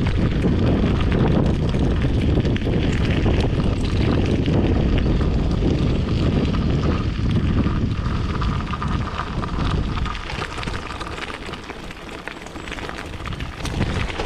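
Wind buffeting a chest-mounted GoPro microphone while a bicycle rides over a gravel trail, with the tyres crunching on gravel and frequent small knocks and rattles from the bike. The noise eases somewhat around ten to twelve seconds in, then builds again near the end.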